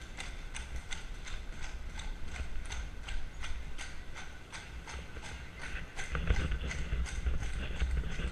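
Carriage horse's hooves clip-clopping on stone paving at a steady walk, about three hoof strikes a second. A low rumble grows louder about six seconds in.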